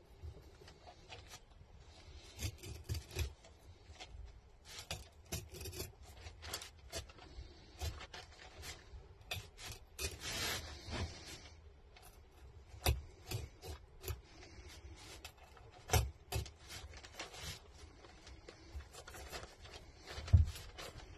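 Filleting knife scraping and rasping along the ribs and backbone of a pollock in short, irregular strokes, with a longer rasp about halfway through. A few knocks cut in, the loudest near the end.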